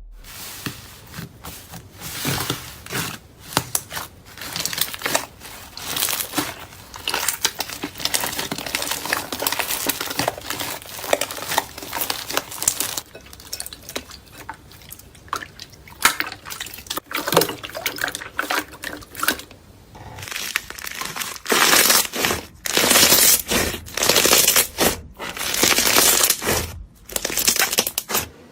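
Slime being squeezed and stretched, a steady run of sticky crackles and pops with wet squelching, growing louder and denser near the end.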